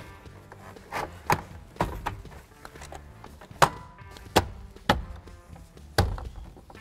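Plastic upper dash panel of a 2001 Ford Ranger being pressed and slapped into place by hand, its metal clips snapping into their holes: a series of about nine sharp clicks and knocks at irregular intervals.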